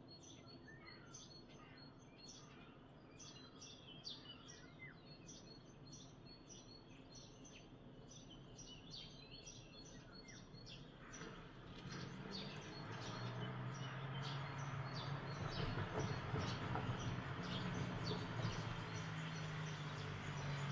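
Small songbirds chirping busily, many short high chirps a second. About halfway through, a low steady motor hum rises beneath them and becomes the loudest sound.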